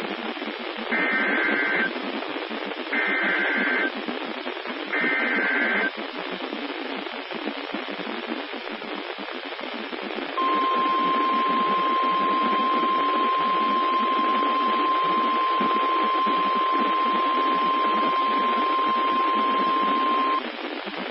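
NOAA Weather Radio Emergency Alert System signal. It opens with three roughly one-second bursts of SAME digital header data, about two seconds apart. After a few seconds of receiver static comes the steady single-pitch 1050 Hz warning alarm tone, held for about ten seconds, with radio hiss underneath throughout.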